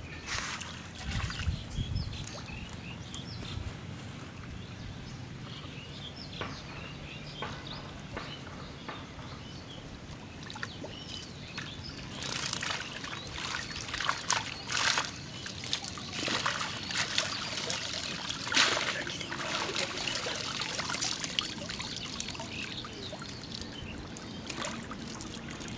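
Pond water sloshing and trickling as a cast net is gathered by hand in the water and lifted out, with short splashes that come thickest past the middle.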